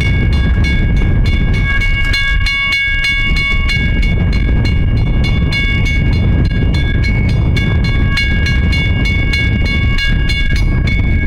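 Norfolk and Western class M 4-8-0 steam locomotive No. 475 approaching with its Southern Pacific six-chime whistle blowing long blasts with short breaks, stopping near the end. Under it run quick exhaust chuffs, about four a second, and a heavy low rumble.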